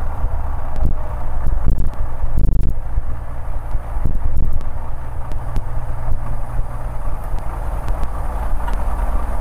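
Cessna L-19 Bird Dog's six-cylinder engine and propeller running at low power in the cockpit during the final approach and flare for landing: a steady low drone with rushing air noise. A few short knocks come in the first three seconds.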